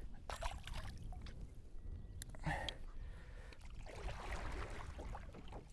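Water splashing and trickling around a kayak, with small knocks, over a steady low rumble of wind on the microphone.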